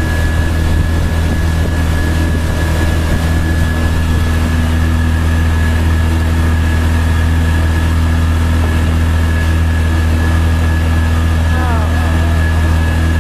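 Vehicle engine running steadily at idle: a constant low drone with a thin steady whine above it. A short wavering pitched call cuts in briefly near the end.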